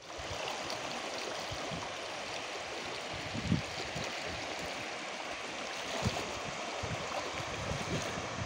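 Floodwater flowing across a submerged road and spilling over its edge: a steady rushing of water, with a few low bumps, the loudest about three and a half seconds in.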